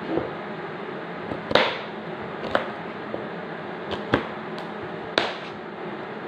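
Kitchen knife chopping on a cutting board: about six separate sharp chops at uneven intervals, over a steady background hum.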